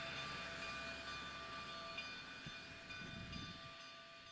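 Narrow-gauge steam locomotive standing in the yard: a few steady high tones over a low rumble, all fading out near the end.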